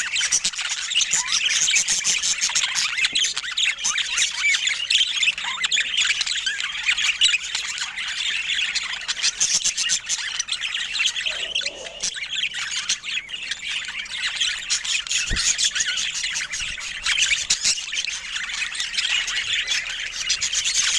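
Budgerigars chattering: a dense, continuous stream of rapid high chirps and squawks that never pauses.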